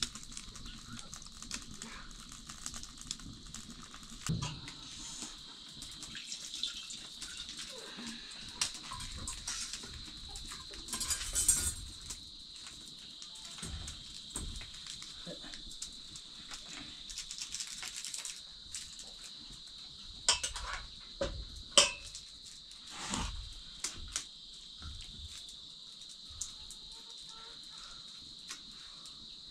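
Scattered clinks and knocks of pots and utensils, with two sharp ones about two-thirds of the way through, over a steady high chirring of insects.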